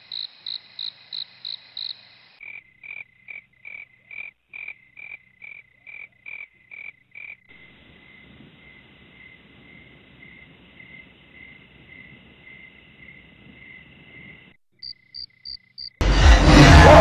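Night ambience of rhythmic high chirping, about three chirps a second, shifting in pitch a few times as one chirping call gives way to another. About a second before the end, a loud burst of music cuts in.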